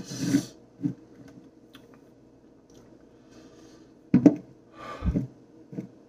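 Short breath and mouth sounds from a man reacting to the burn of a very hot sauce: a sharp breathy exhale at the start, a small mouth click just under a second in, then two more breathy exhales about four and five seconds in.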